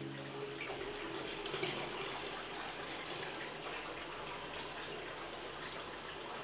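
Hot-spring water running steadily into an onsen bath, an even splashing pour.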